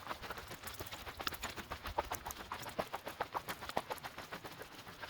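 Footsteps on a hiking trail: a quick, irregular run of short crunches and clicks.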